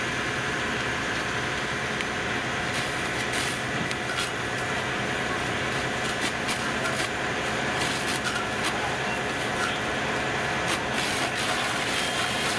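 A fire engine's diesel engine running steadily while it pumps water to the hoselines, a constant droning hum. Scattered sharp crackles and pops sound over it.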